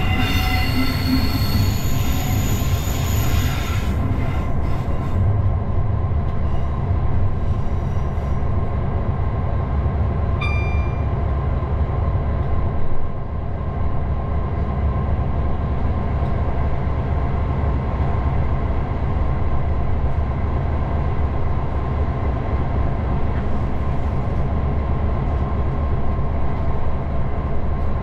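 Cab-interior running sound of a Class 59 diesel locomotive hauling a heavy loaded freight train: a steady low rumble of its two-stroke V16 diesel engine and the wheels on the track. The wheels squeal for the first few seconds as the train crosses the curved junction pointwork, and there is a brief squeal again about ten seconds in.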